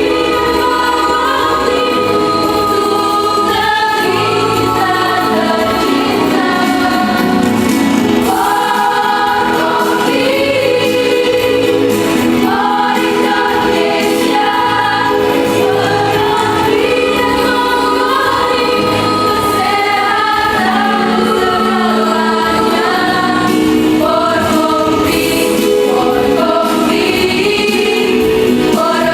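Choir singing a song in Indonesian, several voice parts in harmony.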